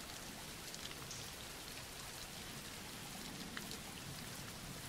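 Steady rain falling, an even hiss with a few faint drop ticks, laid as a background bed.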